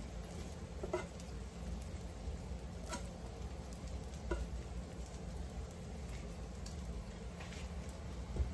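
Matzo and egg mixture sizzling quietly in a hot frying pan, with a few separate clicks of a utensil against the pan or bowl.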